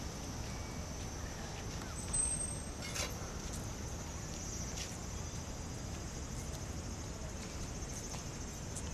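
Cicadas buzzing steadily in the trees, a high continuous drone with a pulsing texture, over low rumble from wind and the handheld camera, with a faint click about three seconds in.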